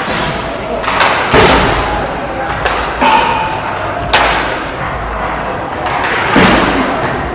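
Inline hockey play: about half a dozen sharp knocks of sticks and puck, each echoing around a large hall, over the voices of players and spectators.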